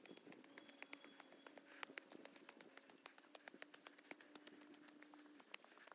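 Faint footsteps on stone steps and a gritty path: many small irregular clicks and scuffs. A faint steady hum runs under them and stops about five seconds in.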